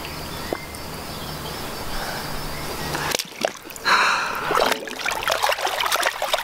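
Lake water splashing and sloshing around a wader-clad angler's hands and legs as a large mirror carp is lowered into the shallows and released. The quick, irregular splashes begin about four seconds in.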